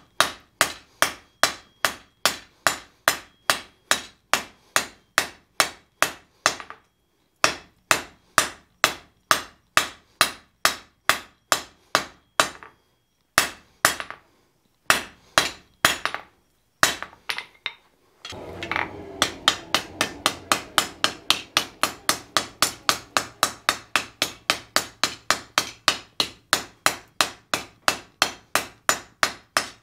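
Blacksmith's hand hammer striking a red-hot steel bar on an anvil in fast, regular blows, about three a second, with a few short pauses. A steady low hum runs beneath the strikes in the second half.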